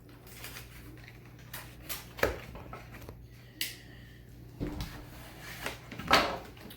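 A dog scratching at a door to be let back in, among scattered scrapes and knocks from a mail package being handled and opened, the loudest knock about six seconds in.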